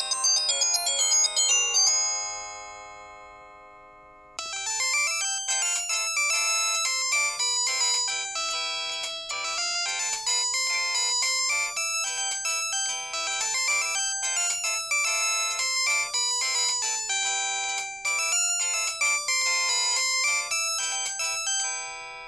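Samsung SGH-C266 mobile phone playing its built-in ringtones. One melody ends about two seconds in and its notes ring away. After a short gap another quick, high-pitched tune with several notes at once starts and plays on, fading out near the end.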